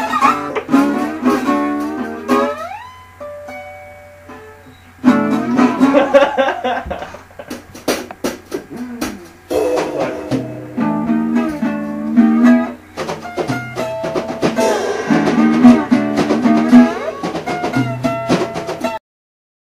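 Music led by an acoustic guitar, with a thinner stretch of rising, sliding and then held tones a few seconds in. The song cuts off abruptly near the end.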